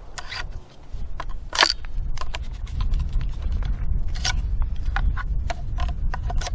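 Sharp metallic clicks and scrapes of a Rock Island TM-22 .22 semi-automatic rifle's action being worked by hand to clear a jam: a fired case stuck in the chamber that the rifle failed to eject. The clicks come in an uneven series over a steady low rumble.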